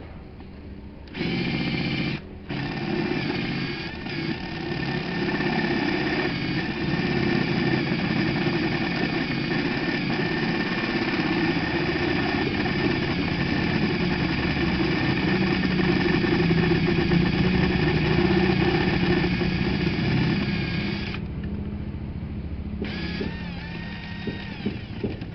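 An electric motor running steadily. It starts about a second in, cuts out for a moment just after, then runs on and stops near the end.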